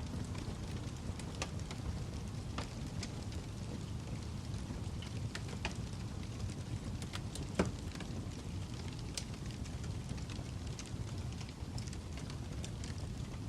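Wood fire in a fireplace burning with a steady low rumble and scattered crackles and pops of the logs, one sharper pop a little past halfway.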